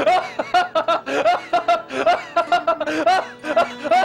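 A man laughing loudly and theatrically: a rapid run of short, high-pitched 'ha' laughs, several a second, with no pause.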